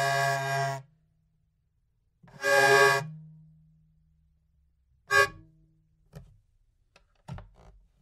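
Hurdy-gurdy drone, sustained and steady, stopping just under a second in. A short swell of about a second follows, leaving a low hum. A few brief snatches of sound come in the second half, and the full drone starts again at the very end.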